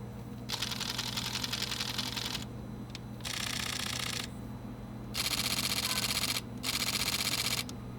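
Fujifilm mirrorless camera's mechanical shutter firing in continuous high-speed bursts: four bursts of rapid clicking, each a second or two long, with short pauses between them.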